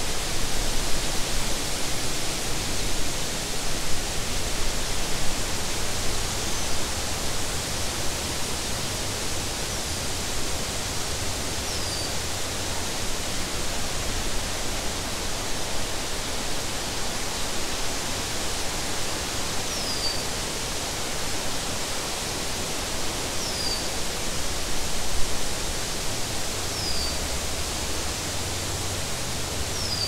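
Wind blowing through tall meadow grass and trees: a steady rushing hiss with an uneven low rumble underneath.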